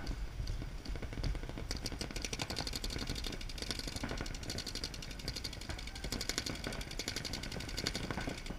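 Paintball markers firing in rapid strings of quick pops, many shots a second. The fire starts about two seconds in and keeps going until near the end, over a low rumble.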